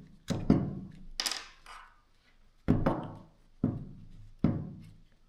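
Half a dozen irregularly spaced knocks and thunks from handling the plastic housing and parts of a disassembled DeWalt cordless drill, with one brief scrape.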